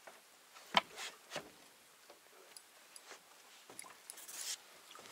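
Quiet, scattered sharp clicks and knocks of gear being handled in a boat, the loudest about a second in, with a short hiss near the end.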